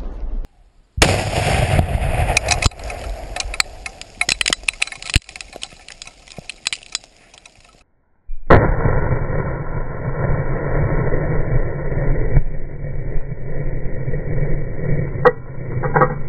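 Controlled detonation of an old aerial bomb from the Spanish Civil War. About a second in there is a blast, followed by a few seconds of scattered sharp cracks and ticks that thin out. Past halfway a second, closer blast hits hard and becomes a long low rumble, with a few sharp knocks near the end.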